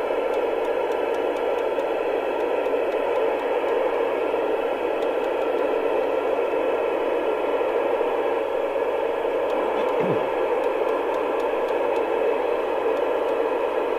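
Rotel RVC220 FM CB radio's loudspeaker giving a steady, loud hiss: open-squelch receiver noise on an empty channel, no station coming through.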